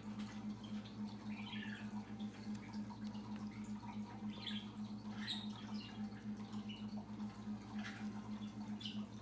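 Trading cards sliding and scraping against each other as they are flipped through by hand, in short scattered scratches. Underneath is a steady low electrical hum.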